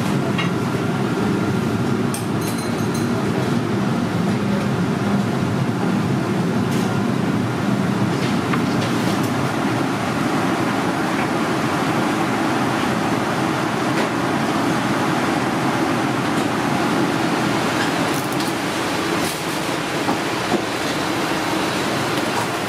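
Steady noise of a commercial kitchen's wok burners and exhaust hood fans running, with a few faint clinks.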